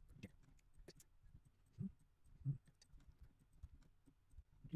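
Faint computer mouse clicks, irregularly spaced about once a second, over near silence, as points of a sketch line are placed.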